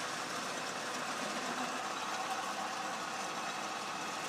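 Atlas 10-inch turret lathe running steadily through a bevel-and-parting cycle on half-inch bar stock.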